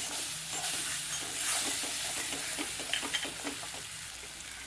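Spice paste sizzling in oil in a metal kadai on low heat, with a steel spatula stirring and scraping against the pan early on and a few light clicks about three seconds in. The sizzle gets gradually quieter.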